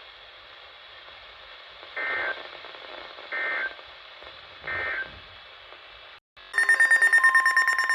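Three short, shrill digital data bursts about a second and a half apart: the Emergency Alert System end-of-message code, heard over receiver hiss. About six and a half seconds in, a loud, rapidly pulsing electronic buzzing tone starts.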